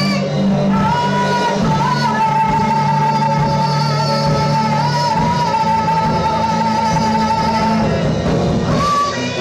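Live worship band music: a female vocalist holds one long sung note over steady keyboard and electric guitar chords, with shorter sung phrases starting near the end.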